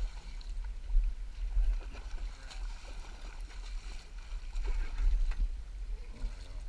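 Wind buffeting the camera microphone: a low, gusty rumble that swells and eases.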